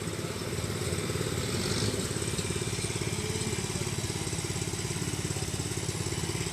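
Truck's diesel engine idling with a steady, fast, even throb.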